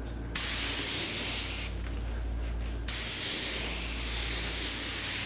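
Spray gun hissing as a light dusting coat of dye is sprayed, with the trigger released for about a second in the middle before spraying resumes. A steady low hum runs underneath.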